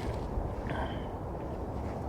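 Wind buffeting the microphone, a steady low rumble, with a faint short high chirp about three-quarters of a second in.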